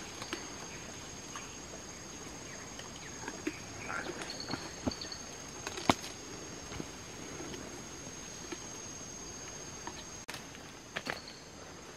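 Steady high-pitched insect drone of the rainforest, with scattered snaps and rustles of leafy vegetation; the sharpest snap comes about six seconds in.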